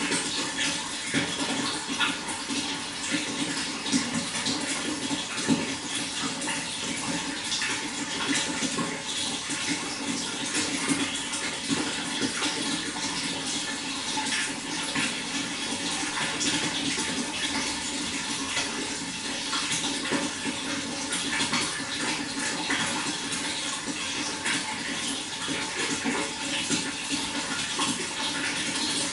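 Running water flowing and splashing steadily, with a constant rushing sound and small irregular splashes.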